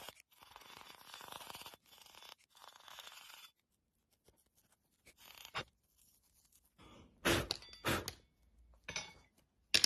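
Fingerboard grip tape being worked onto the deck: a run of rough scraping, crunching strokes for about three and a half seconds, then a pause broken by a few short sharp rustles and clicks, the loudest about two seconds before the end.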